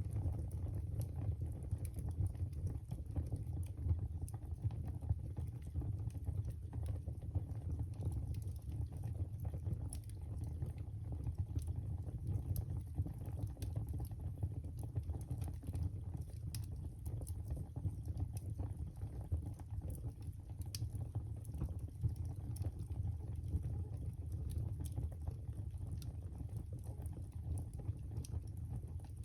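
Wood fire burning in a fireplace: frequent, irregular sharp crackles and pops over a steady low rumble.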